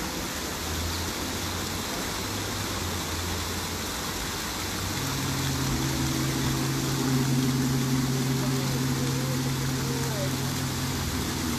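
Large gong played with a soft mallet, a low steady hum that swells about five seconds in, over the steady rush of a waterfall.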